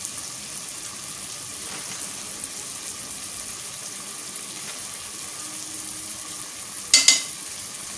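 Onion, tomato and spice masala frying in oil in a pot, a steady soft sizzle. One short sharp knock about seven seconds in.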